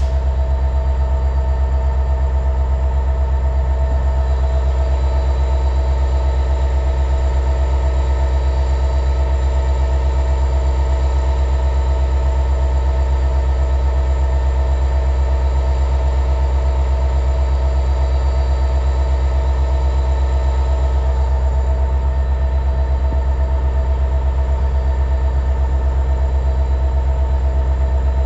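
Diesel locomotive engines of a CSX freight train running with a steady low drone and several steady tones, unchanging throughout.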